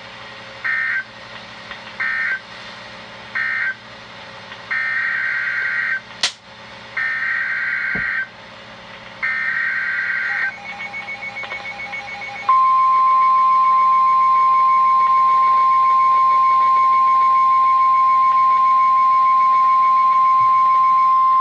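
Emergency Alert System SAME data signals: three short screeching bursts, the end-of-message code closing the previous warning, then three longer bursts carrying the next warning's header. These are followed by the 1050 Hz weather radio warning alert tone, one steady loud tone held for about nine seconds.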